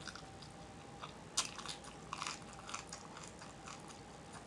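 Close-miked chewing with lips smacking: soft, scattered wet clicks of a mouth working on food, the sharpest about a second and a half in.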